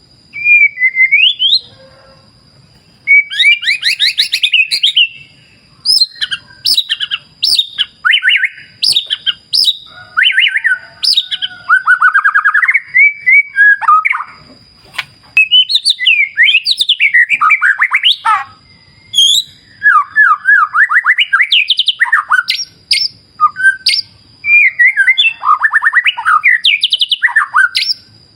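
White-rumped shama (murai batu) singing a long, varied song: loud phrases of fast trills, whistles and chattering notes, with short pauses between phrases.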